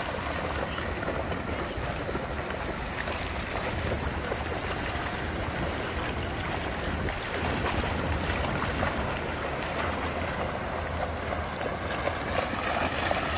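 Steady wind noise on the microphone over the wash of ocean surf, with dogs splashing as they run through shallow seawater.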